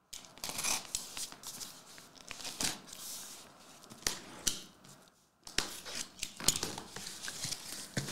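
Utility knife slitting the tape along the seams of a cardboard box in a run of scratchy scraping strokes with sharp clicks, pausing briefly about five seconds in; then the cardboard flaps being pulled open.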